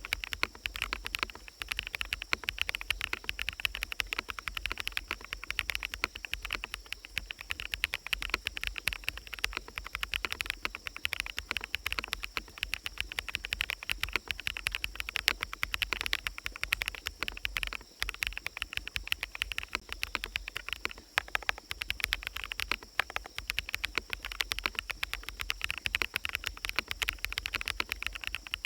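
Fast, continuous typing on a mechanical keyboard with fully lubricated BSUN Sunset Yellow switches: a dense stream of soft key clacks. Forest ambience with birds and insects runs steadily underneath.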